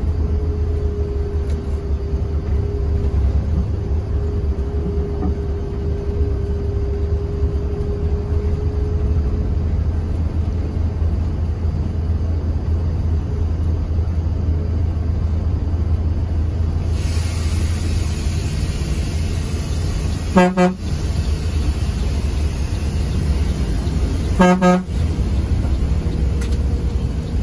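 Mercedes-Benz OH 1626 coach running on the road, a steady low rumble, with two short toots of a vehicle horn about four seconds apart near the end. A hiss comes in about two-thirds of the way through.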